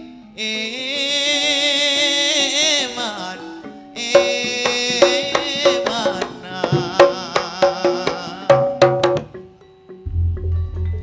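Live East Javanese gamelan music accompanying jula-juli song: a held, wavering melody for the first few seconds, then struck metallophone notes that ring on, with drum strokes between them. A low pulsing tone comes in near the end.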